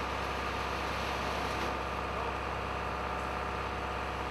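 Engine of a site machine running steadily at a constant speed, as when it is holding a suspended load.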